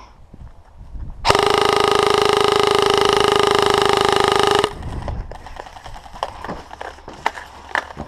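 A horn sounds one long, steady, loud blast of about three and a half seconds, starting a little over a second in and cutting off sharply.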